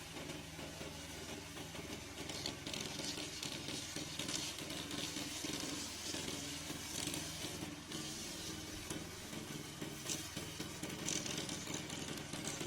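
Petrol engine of a remote-control slope mower running steadily, with bursts of hiss now and then.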